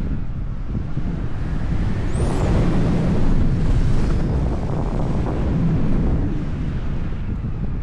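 Wind buffeting the microphone of a 360 camera held out from a paraglider in flight: a loud, steady, low rumble of rushing air.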